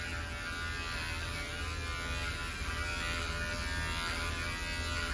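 Electric pet hair clipper running with a steady buzz as it shaves a small dog's fur.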